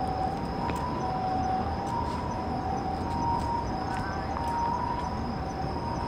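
Japanese ambulance siren sounding its two-tone 'pii-poo', a higher and a lower note taking turns, each held a little over half a second, over steady background noise.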